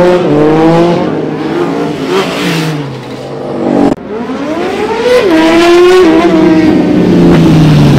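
Sportbike engines revving hard as the motorcycles ride past, the pitch climbing and dropping sharply with each shift. The sound breaks off suddenly about halfway and picks up again at full volume.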